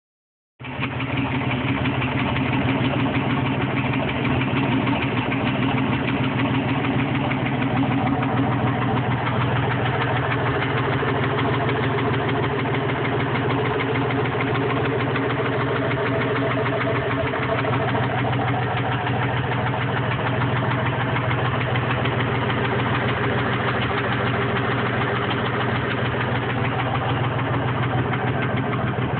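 Engine idling steadily with a fast, even ticking knock running through it, a noise the owner suspects could be rod knock, a stuck valve or an exhaust leak.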